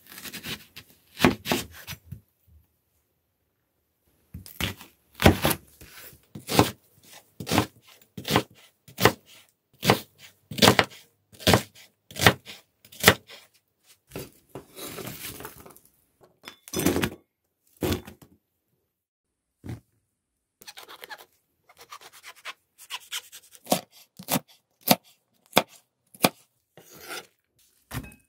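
Chef's knife cutting a raw onion on an end-grain wooden cutting board: a long series of separate cuts at irregular spacing, each ending in a knock on the wood, with a few pauses and a longer rustling stretch midway.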